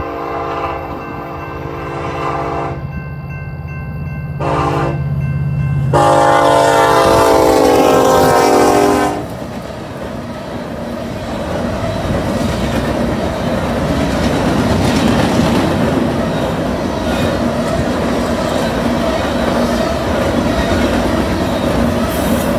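A freight locomotive's horn sounds a long blast, a short blast, then a final long blast whose pitch drops as the locomotive passes. A Union Pacific grain train of covered hopper cars follows, rumbling and clattering past at speed.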